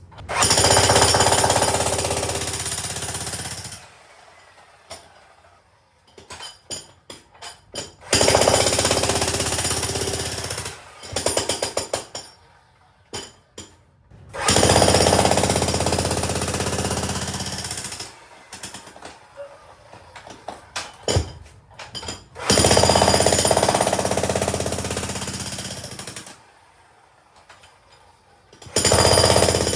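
Makita HM1810 electric demolition hammer breaking up a concrete basement slab, in runs of about three to four seconds with short stuttering taps and pauses between, starting up again near the end.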